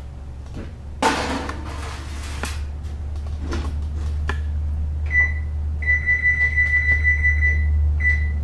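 Gas range oven being loaded and set: a clattering rush about a second in as the baking dish goes onto the rack and the oven door shuts, then a couple of clicks. From about five seconds the range's electronic controls beep in one high tone: a short beep, a long beep of about two seconds, then two short beeps, as the oven timer is set.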